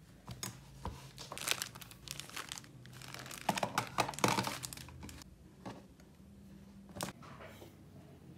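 Hands tidying a desk: irregular rustling and crinkling as items are handled, with light clicks and knocks as things are moved and set down. It is busiest about three to four and a half seconds in, with one sharper knock near the seven-second mark.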